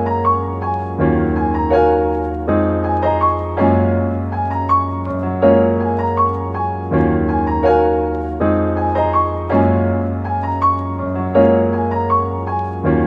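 Background piano music: held low bass notes under chords that change about every one and a half seconds.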